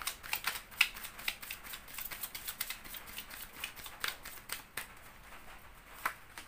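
Tarot cards being shuffled by hand: a quick run of light clicks and rustles from the card edges, thinning out after about four seconds.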